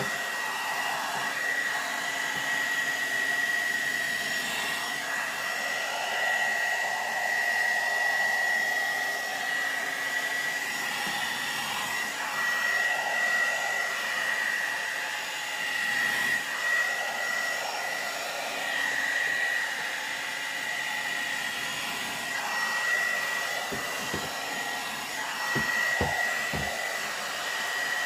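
Hot air brush (one-step hair dryer and styler) running on its high setting: a steady rush of air with a high-pitched motor whine, swelling a little as it is worked through damp hair. A few light knocks near the end.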